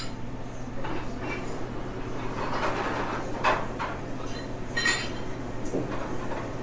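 China cup and cutlery clinking a few times at a table, light sharp chinks over a steady low hum.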